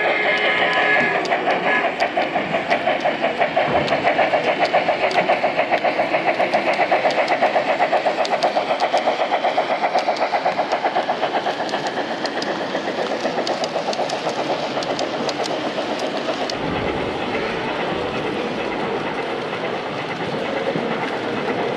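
Sound-equipped model steam locomotive: a chord whistle dies away about a second in, then fast, even steam chuffing at about four beats a second as it runs with its train, easing after about 12 s into a steadier running sound.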